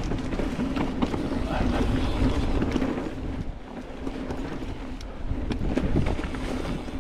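Mountain bike riding down a rough dirt trail: wind buffeting the microphone over tyre noise, with scattered sharp knocks and rattles from the bike over the bumps.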